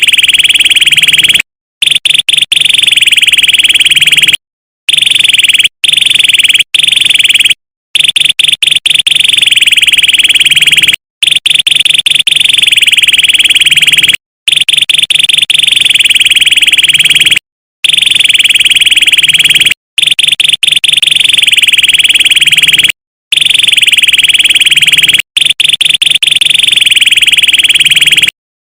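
A high, buzzing trilling call repeated in stretches of about one to three seconds, cut apart by sudden silent gaps: an edited, looped recording of the kind used to train caged songbirds.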